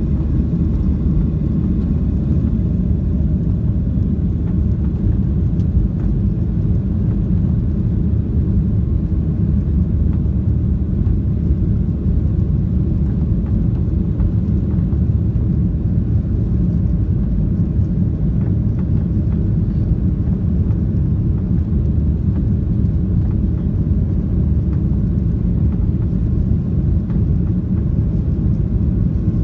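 Boeing 737's turbofan engines at takeoff power, heard inside the cabin: a loud, steady low rumble through the end of the takeoff roll, lift-off and initial climb.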